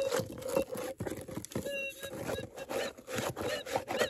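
Minelab Gold Monster metal detector in manual mode giving a steady threshold hum with light chatter as its coil is swept over gravel. Many short crunches and scrapes come from the coil and gloved hand brushing dirt and stones.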